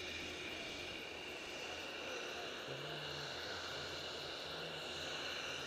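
Steady rushing hiss of wind on the microphone of a skier's camera, with skis sliding over packed snow.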